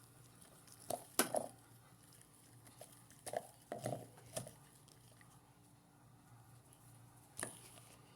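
Faint steady hum of a washing machine running its spin cycle, with a scattering of light knocks and clicks, the loudest about a second in, a cluster around four seconds in, and one more near the end.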